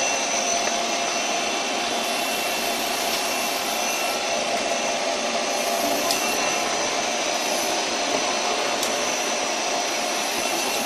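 Doosan CNC lathe with its spindle running while a turning tool takes a steady trial cut on the workpiece, hand-fed by the handwheel, to touch off the tool for its offset. A steady hissing machining noise with a few faint high tones.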